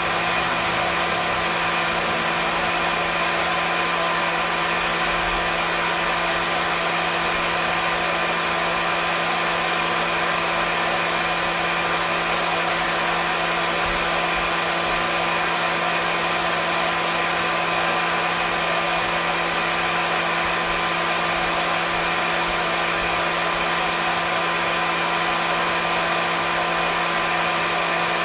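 Hair dryer running steadily: a continuous rushing airflow with a steady motor hum, unchanging throughout.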